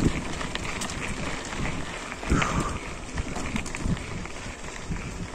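A bicycle riding a trail: tyre noise over the ground with many small rattling knocks from bumps, and wind on the microphone.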